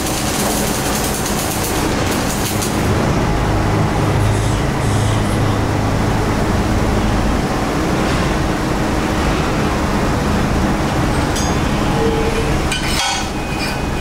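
MIG welding arc crackling and sizzling for the first few seconds, then cutting off, over a loud steady mechanical drone. A couple of sharp metal clinks near the end as the fresh weld on the steel plate is struck with a hand tool.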